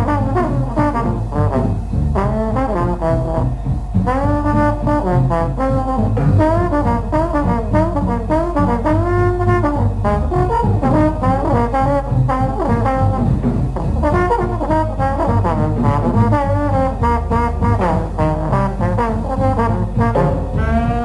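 Harmonica orchestra playing an instrumental tune, several parts in harmony over a bass line, with a steady low hum under the old recording.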